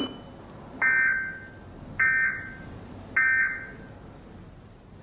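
Emergency Alert System end-of-message data tones: three short, buzzy digital bursts about a second apart, each trailing off in an echo. They signal the end of the alert broadcast.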